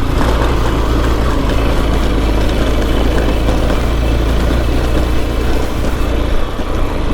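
Motorcycle engine running steadily while riding, with a constant low rumble.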